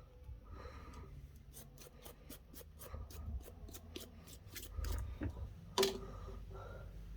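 A quick, even run of sharp clicks, about five a second for some three seconds, then one louder click near the end: small-scale tool work on a phone.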